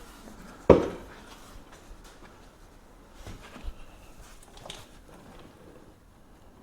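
A car door being lifted into place on its hinges: one sharp clunk about a second in, then a few light knocks and clicks.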